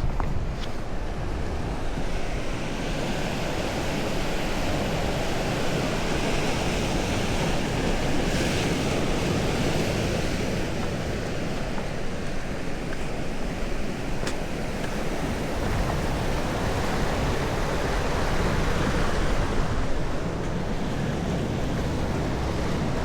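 Ocean surf: waves breaking and washing in a continuous rush of noise, swelling about eight seconds in and again near the end.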